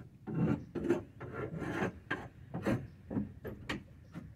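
Hand scraper rasping over a surface in a chicken coop in quick repeated strokes, about two a second.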